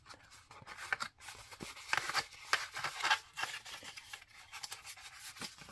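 Cardstock pieces being folded by hand along their score lines: short, irregular crisp paper rustles and scrapes, the loudest few around the middle.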